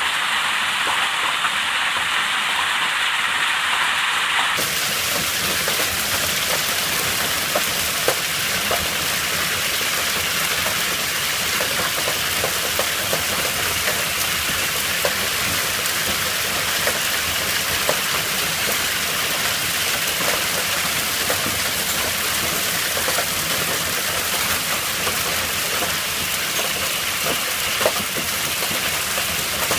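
Heavy rain and hail coming down: a dense, steady hiss dotted with sharp hailstone hits. The sound turns brighter about four and a half seconds in.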